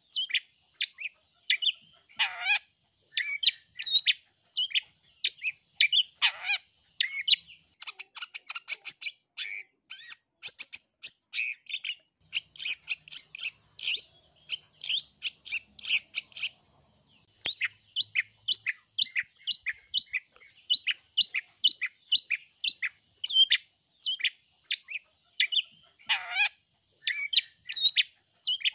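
Long-tailed shrike (cendet) calling in a fast, unbroken run of short, sharp, down-slurred chattering notes, about three or four a second. A few harsh, rasping screeches break in, and the chatter grows denser and higher in the middle.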